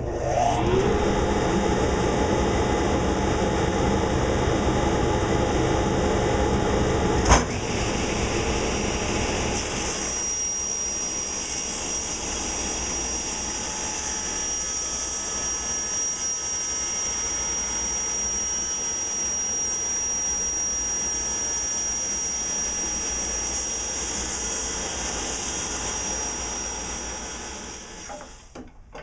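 Table saw starting up and spinning up to speed, then running steadily as a board is pushed through the blade in a rip cut, with one sharp knock about seven seconds in. The saw winds down near the end.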